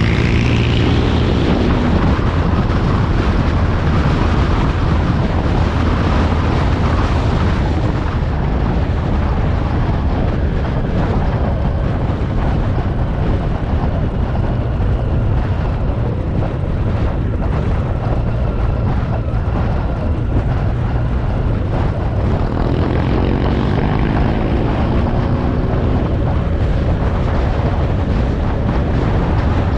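Motorcycle riding at speed, heard from a bike-mounted camera: a steady engine drone under heavy wind rush on the microphone, with the engine note rising and falling a little after twenty seconds in.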